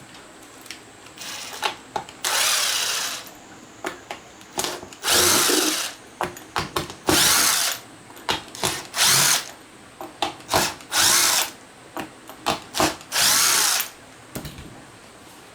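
A small electric motor run in short bursts, about six times, each spinning up and down in pitch, with clicks between the bursts.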